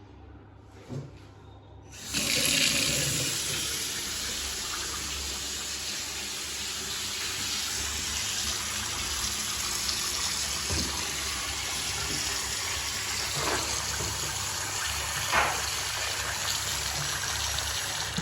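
A click, then water from a wash-basin mixer tap starts running about two seconds in and runs steadily into the basin, stopping near the end, with a couple of brief louder splashes along the way.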